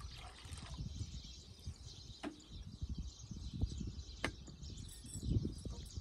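Water poured from a plastic jug into a metal bowl, stopping within the first second. Then quieter handling with two short sharp ticks, and water sloshing near the end as potatoes are washed by hand in the bowl.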